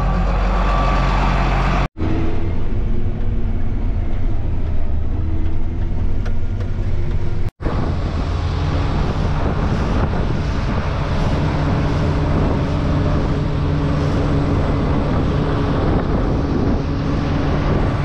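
Large diesel farm machinery running steadily with a low engine drone and machinery noise. The sound cuts out for an instant twice in the first half.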